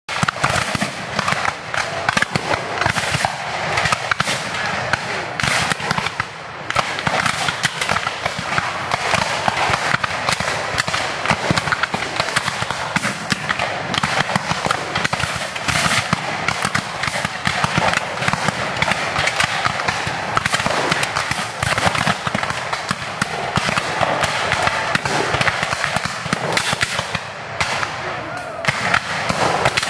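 Massed black-powder musket fire from many reenactors' guns: a dense, continuous crackle of shots, many a second, with no break.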